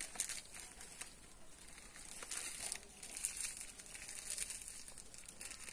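Faint, irregular rustling and crackling of dry leaf litter.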